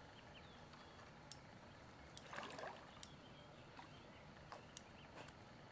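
Faint splashing and sloshing of water from a hooked carp swirling at the surface close to the bank, loudest about halfway through, with a few light ticks.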